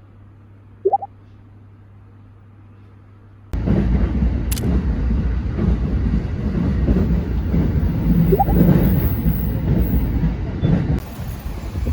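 A faint steady hum with one short rising squeak about a second in, then, about three and a half seconds in, a sudden loud, steady low rumble and rattle of a moving vehicle.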